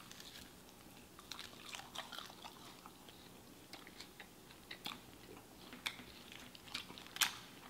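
Biting into and chewing crunchy fried chicken wings: scattered short crunches, with one sharper crunch near the end.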